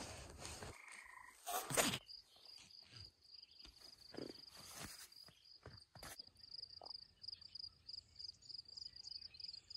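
A small calling animal's high-pitched trill, pulsing rapidly and evenly, starts about two seconds in and runs on steadily. Just before it begins there is a loud brief rustle, with faint rustles and clicks under the trill.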